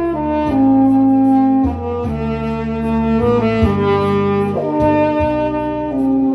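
Tenor saxophone playing a slow melody in long held notes, changing pitch about once a second, over a backing track with a bass line and a steady hi-hat beat.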